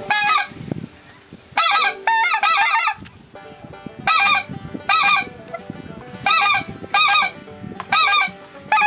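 Specklebelly (greater white-fronted) goose yodel calls: loud, high, laughing notes in quick bursts of two or three, repeated about once a second.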